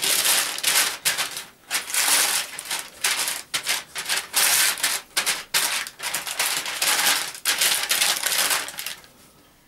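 Silicone pastry brush spreading oil over parchment paper on a baking sheet: repeated scratchy, papery rustling strokes, stopping about a second before the end.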